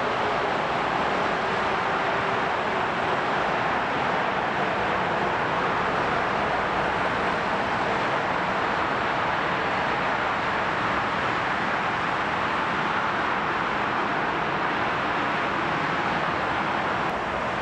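Distant jet engines of a Eurowings Airbus narrowbody airliner spooled up on the runway for takeoff: a steady, even jet noise.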